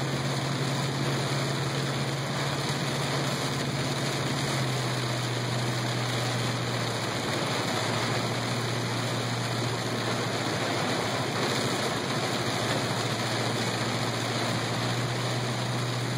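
Heavy rain on a moving car's roof and windshield, heard from inside the cabin as a dense, steady hiss along with wet road noise, over a steady low engine hum.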